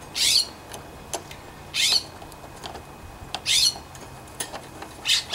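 A bird calling: a short, high call that falls in pitch, repeated four times about every second and a half. Faint small clicks of metal parts being handled come between the calls.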